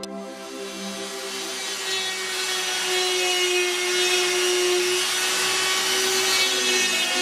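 A power tool working the piece, a steady hiss that grows louder over the first few seconds, with held notes of background music underneath.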